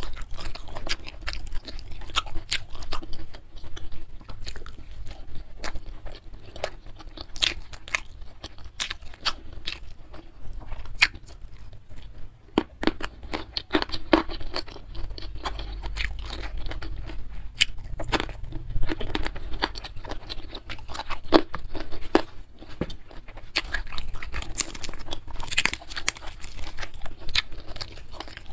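Close-miked chewing and biting of a mouthful of rice, spicy beef and raw vegetables, with many irregular sharp crunches and mouth clicks.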